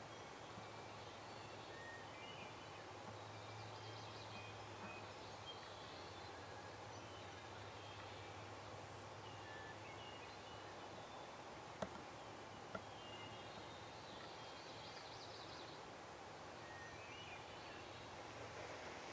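Faint morning birdsong of scattered short chirps, with two distant wild turkey gobbles, about four seconds in and again about fifteen seconds in. Two light clicks come near the middle.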